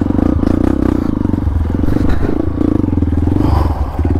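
Single-cylinder engine of a trail motorcycle revving hard under heavy throttle, with brief dips in revs, as the bike climbs a steep, slippery mud slope.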